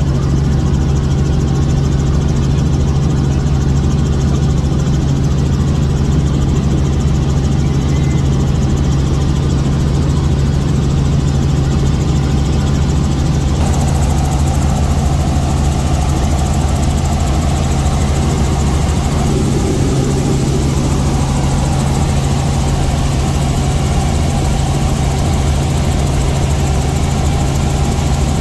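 Helicopter in flight heard from inside the cabin: a loud, steady drone of engine and rotor with a strong low hum. About halfway through, the hiss above the drone becomes a little stronger.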